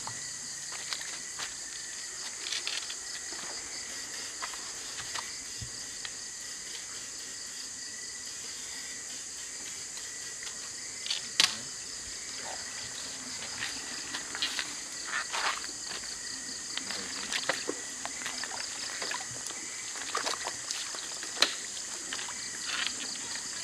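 A steady chorus of night insects with a fast pulsing trill, over irregular sloshes and splashes of water as someone wades a shallow creek. A sharp knock or splash stands out about eleven seconds in.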